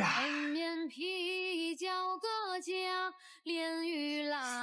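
Background song: a high, female or childlike voice singing a melody in held notes, with a brief pause about three seconds in.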